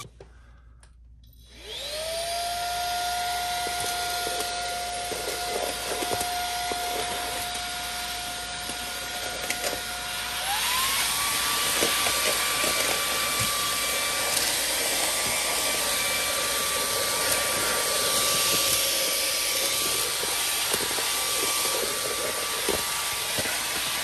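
MOOSOO K17 Pro cordless stick vacuum's brushless motor spinning up about two seconds in with a rising whine, then running steadily with a rush of airflow through the crevice nozzle. About ten seconds in its pitch steps up and it gets louder as it switches to high suction mode, and small ticks come from debris being drawn up off the floor.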